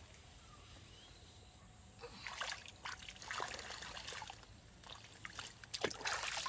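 Shallow muddy water splashing and trickling as hands move about in it among floating plants. It is nearly quiet for about two seconds, then irregular small splashes and drips follow, busiest near the end.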